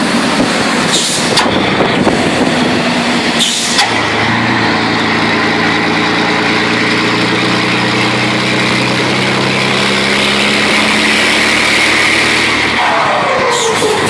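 Scania 112 truck's diesel engine, fitted with a tuned engine brake and 'pente' exhaust, running with a deep, steady note. A few sharp pops sound in the first four seconds, and the pitch falls about a second before the end.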